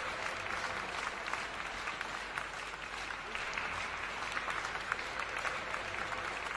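Audience applauding steadily: many hands clapping at an even level.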